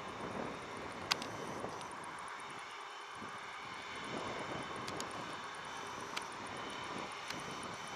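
Airbus A330-300 with Rolls-Royce Trent 700 jet engines taxiing at low power: a steady jet whine over a broad rumble. A few brief sharp clicks are also heard, the clearest about a second in.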